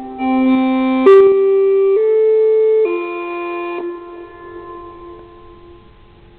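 Outdoor warning siren's loudspeakers playing an electronic alert chime: held chords of pure tones that change about once a second, then ring out and fade away. It is the tone that heralds the siren's spoken test message.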